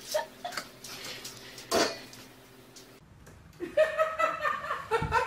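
A few light knocks and a louder thump, then, after a brief gap, a person laughing in quick rhythmic giggles from about four seconds in.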